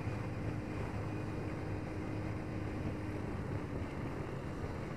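Yamaha Vixion R 155 VVA's single-cylinder engine running at steady revs while riding, under a steady rush of wind and road noise.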